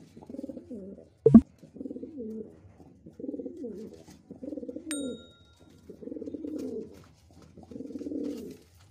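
Domestic pigeons cooing in a string of about seven low, wavering coos with short pauses between them. A sharp click about a second in is the loudest sound, and a short high chime rings out around the middle.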